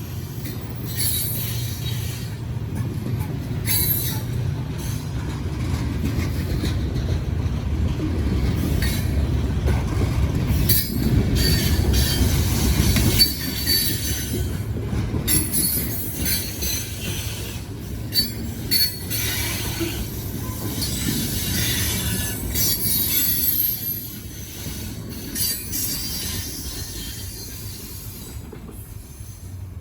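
Loaded rock cars of a freight train rolling slowly past on an uphill grade, steel wheels squealing and screeching against the rails again and again. A heavy low rumble underneath drops away about 13 seconds in.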